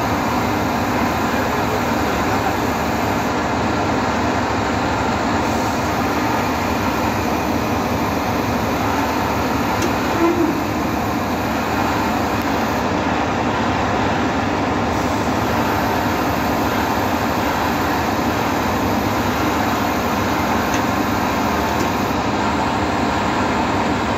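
Putzmeister truck-mounted concrete boom pump running steadily, its truck engine and hydraulics giving a loud, even machinery noise, with one brief sharper sound about ten seconds in.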